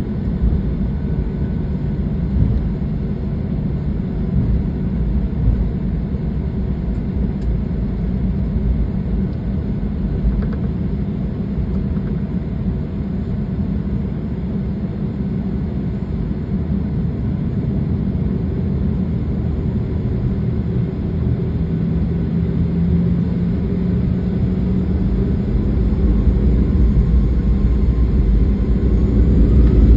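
Jet airliner cabin noise as a Boeing 737-800 rolls on the ground: a steady low rumble and hiss of its CFM56-7B engines and wheels. In the last few seconds it grows louder with a rising whine as the engines spool up for takeoff.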